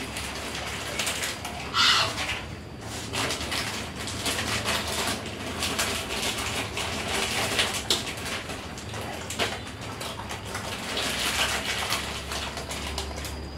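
Small plastic snack wrappers crinkling and rustling in the hands as sweets are unwrapped and eaten, in irregular crackly bursts, with a louder rustle about two seconds in.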